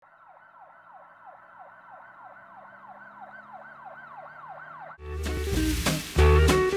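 A faint siren in a fast yelp, its pitch sweeping down over and over, two to three times a second. About five seconds in, it gives way to loud upbeat music with bass and drums.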